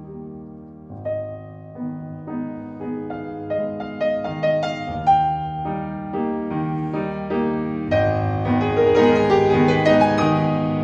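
Background piano music: single notes struck one after another, growing louder and fuller about eight seconds in.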